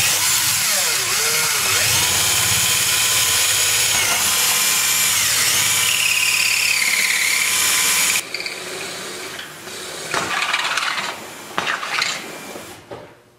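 Power drill boring a small pilot hole through a camper's cabinet back and outer wall. Its whine rises and falls in pitch as the bit works through the wall. It stops about eight seconds in, and softer noises follow.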